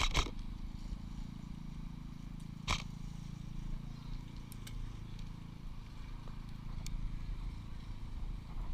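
Airsoft gun firing: the last shots of a rapid burst right at the start, then a single sharp shot almost three seconds in, with a few faint distant pops later, over a steady low rumble.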